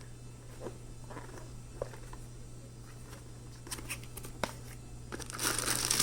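Packaging being handled: a few scattered small clicks and taps, then plastic wrapping crinkling loudly from about five seconds in.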